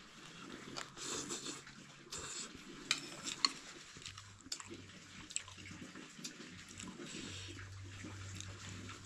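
Eating noodle soup from a plate: scattered light clicks of a spoon against the plate and soft wet slurping, with the sharpest clicks about three seconds in.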